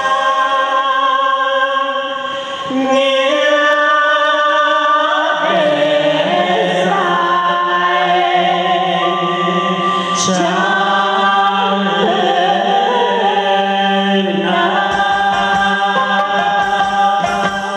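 A song with a voice singing long, wavering held notes over musical accompaniment.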